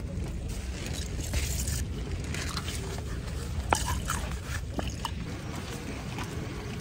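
Plastic crinkling and handling of a soft wine pouch and wine pouring into a plastic wine glass, with a few sharp clicks and taps, over a steady low rumble of wind.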